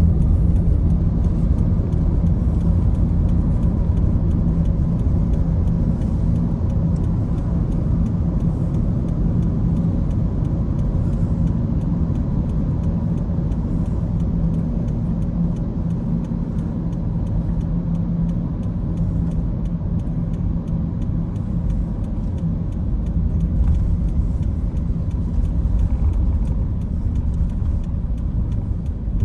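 Steady low engine drone with a faint steady hum over it, unchanging throughout, as from the diesel engines of the ferry Yamato.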